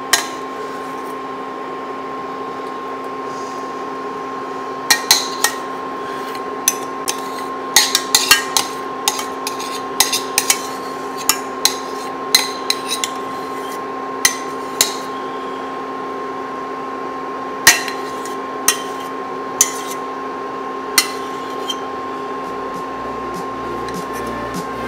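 Metal utensil clinking and scraping against a stainless steel saucepan as thick tapioca starch paste is scraped out of it: irregular sharp clinks starting about five seconds in, busiest over the next eight seconds and thinning out later, over a steady hum.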